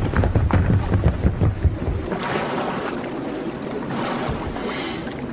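Wind and sea waves on the open deck of a surfaced submarine. Low, gusty buffeting comes in the first two seconds, then a steady rush of wind and water.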